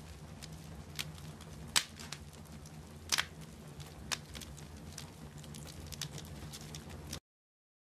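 Wood fire crackling, with irregular sharp pops over a low steady hum; the sound cuts off suddenly near the end.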